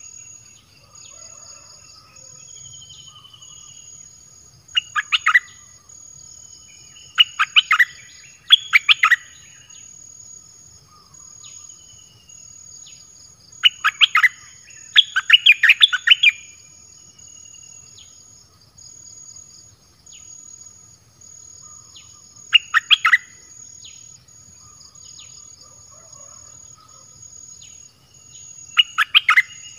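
Songbirds (bulbuls) at a decoy cage sing short, loud phrases of rapid notes every few seconds, with softer single notes in between. A steady, pulsing high insect trill runs underneath.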